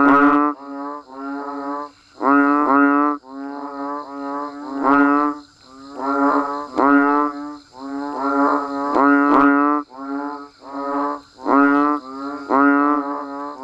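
Banded bullfrogs (Asian painted frogs) calling in chorus: deep, pulsed moaning calls, each under a second long, one after another at about two a second and sometimes overlapping. A faint steady high-pitched buzz runs behind them.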